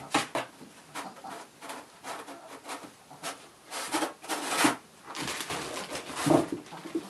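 Cardboard box scraping, rustling and knocking as a kitten scrambles and claws inside it, with quick scratches and taps throughout; the loudest rustling comes about four seconds in and again just after six seconds, as the box tips over.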